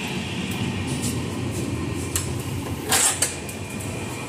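Steady low rumble of a moving passenger coach heard from inside, with light clicks and a sharp metallic clack about three seconds in as a stainless-steel door latch is worked.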